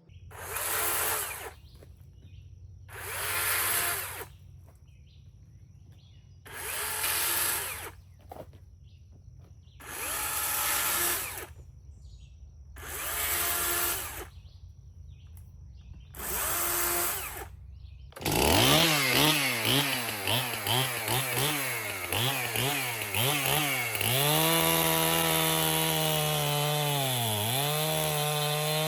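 A chainsaw cutting firewood. A low steady engine hum runs under six short loud bursts, one about every three seconds. About 18 seconds in, the saw runs continuously, its pitch dipping and recovering as it bites into the wood.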